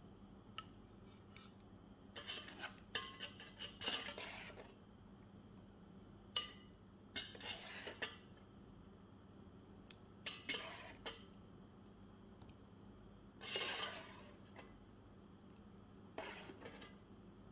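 Metal cutlery clinking and scraping against dishes in several short bursts separated by pauses, over a faint steady hum.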